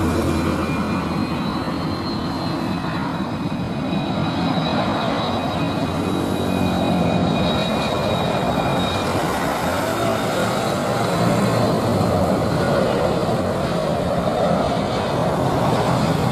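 Boeing 767 freighter on final approach with gear down, its twin turbofan engines giving a steady rumble with high whining tones that are clearest in the first half.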